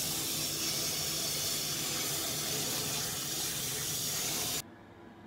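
Tap water from a sink spray faucet pouring into a stainless steel pot as raw pork tail pieces are washed by hand: a steady hiss of water that cuts off suddenly about four and a half seconds in.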